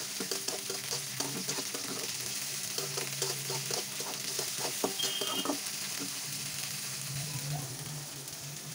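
Peanuts frying in an aluminium karai, a spoon stirring them so the nuts rattle and scrape against the metal over a low sizzle. The clattering stirring stops a little past halfway, leaving the steady sizzle.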